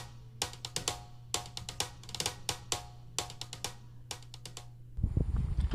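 Background music with a steady drum beat. Near the end the music stops and a low rumbling noise takes over.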